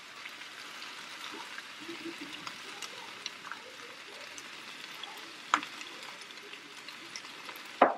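Sausage and potatoes sizzling softly in a skillet, the heat just turned down, with scattered light ticks. A sharp click comes about five and a half seconds in and another near the end.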